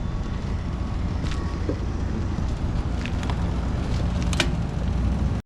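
Steady low rumble with an even hum, with a few faint clicks and taps.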